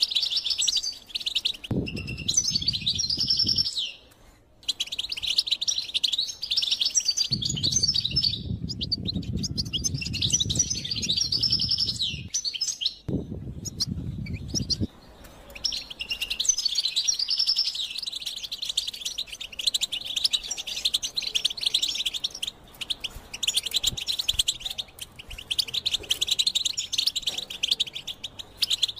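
European goldfinch singing a long, fast twittering song of rapid chirps and trills, with a brief pause about four seconds in. A low rumble sits underneath in a few stretches.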